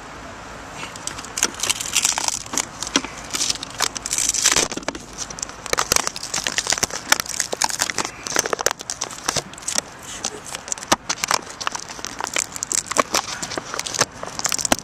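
Handling noise: fingers rubbing and brushing over the recording phone and its microphone, a dense, irregular run of crackles and scratches beginning about a second in.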